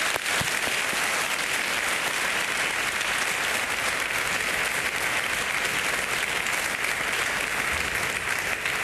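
A large crowd applauding steadily, a dense patter of many hands clapping.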